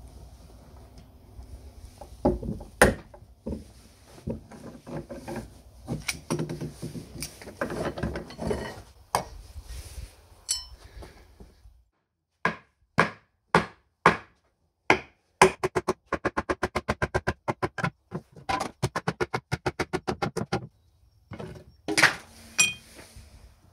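Knocks and handling on a solid oak workbench, one sharp knock about three seconds in. Then comes a series of short pitched notes, first spaced out and then fast and even at about eight a second, followed by a couple of knocks near the end.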